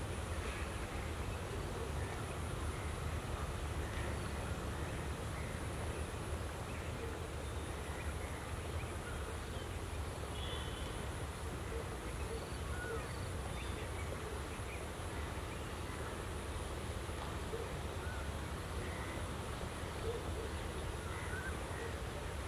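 Outdoor ambience: a steady low rumble with scattered faint bird calls.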